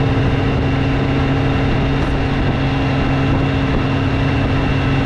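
Motorcycle engine running at a steady cruising speed, its pitch holding level.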